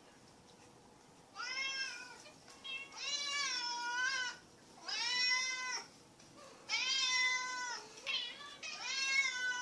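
A cat meowing over and over: a series of about six long, drawn-out meows with short pauses between them, starting about a second and a half in.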